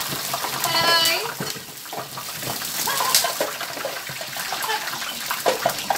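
Pork leg deep-frying in a pot of hot oil: a steady sizzling hiss with small crackles and pops.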